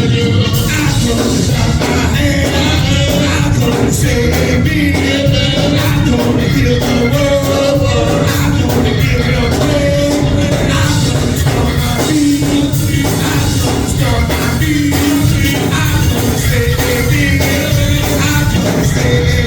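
Live gospel worship music: a church band with drums and bass playing steadily, with voices singing over it.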